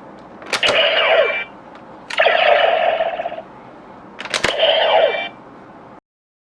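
DX Neo Decadriver toy belt playing electronic sound effects through its small speaker. Three times, a click is followed by about a second of a buzzing electronic tone with falling sweeps, and then everything cuts off sharply.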